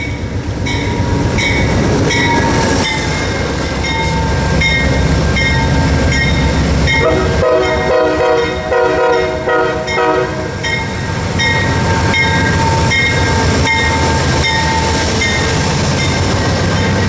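A train runs by with a steady low rumble and a regular clicking rhythm. Its horn sounds a chord for about three seconds near the middle.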